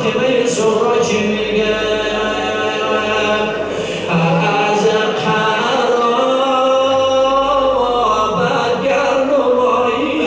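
A man chanting a Shia Muharram mourning elegy (rowzeh) unaccompanied into a microphone, in long held notes that glide from pitch to pitch.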